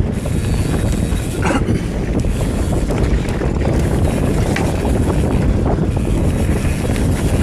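Wind buffeting the microphone over a steady rumble of a Commencal META TR29 mountain bike's tyres rolling on a dry dirt trail, with a few brief clatters from the bike over bumps.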